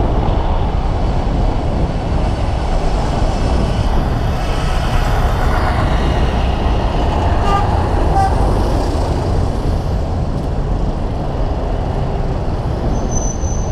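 Steady wind rumble on the microphone of a camera on a moving bicycle, mixed with road traffic noise.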